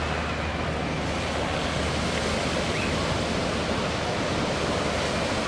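Steady rushing noise of surf and wind, even throughout, with a low drone fading out about a second in.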